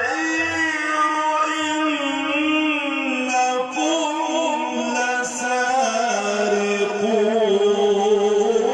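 A man's voice reciting the Quran in a melodic, drawn-out chant, holding long ornamented notes with a wavering pitch. The melody steps gradually lower, settling on a deeper held note about six seconds in.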